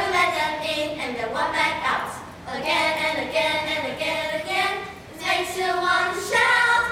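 A group of children singing together in unison, with held notes and short breaks between phrases.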